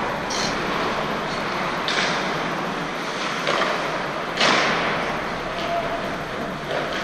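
Hockey skate blades scraping on the ice in several short strokes, the loudest about four and a half seconds in, over the steady noise of the rink.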